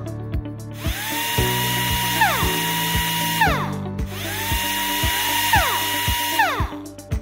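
Toy drill whirring twice: each time the pitch rises as it spins up, holds steady for a couple of seconds, then falls as it winds down. Background music with a steady beat plays underneath.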